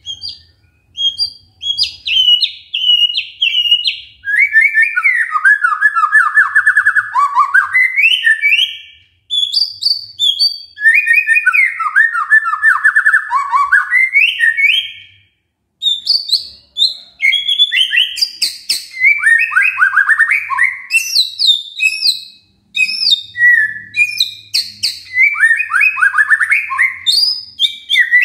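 White-rumped shama singing loudly in long, varied phrases. Whistled notes mix with rapid rattling trills that drop in pitch, with brief pauses about 9, 15 and 23 seconds in.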